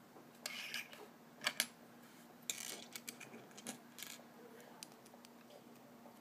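LEGO plastic pieces clattering and clicking as they are picked up from a wooden table and pressed together: a short rattle, two sharp clicks about a second and a half in, another rattle, then lighter ticks.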